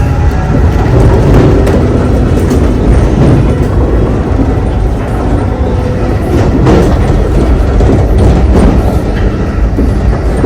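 Next-Generation Acela train in motion, heard from on board: a loud, steady rumble with the clickety-clack of wheels over the track.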